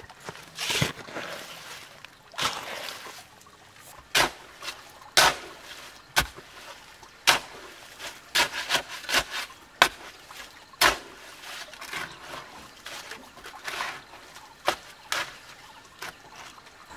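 Steel shovel mixing wet cement mortar on bare ground: repeated scrapes and wet slaps of the blade through the mix, at an uneven pace of roughly one stroke a second, a few coming in quick succession in the middle.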